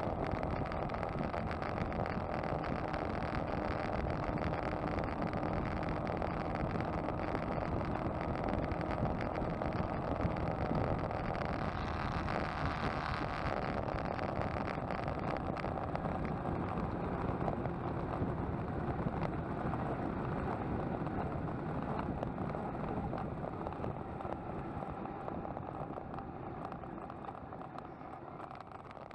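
Motorcycle riding at highway speed, heard from on board: a steady engine drone under wind and road noise. It grows quieter over the last several seconds.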